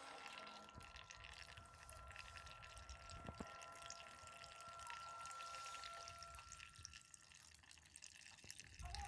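Faint water sloshing and dripping in a small portable washing machine, with a faint steady high hum that stops about three-quarters of the way through. A louder knock comes at the very end.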